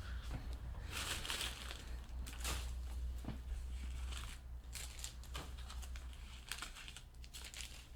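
Trading cards and pack wrappers being handled: irregular rustling and crinkling over a steady low electrical hum.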